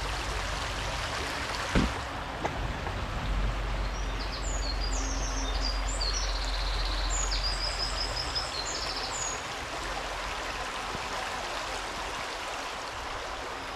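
Shallow stream babbling over stones, a steady rush of water. About four seconds in a small bird sings a quick run of high chirping notes for several seconds.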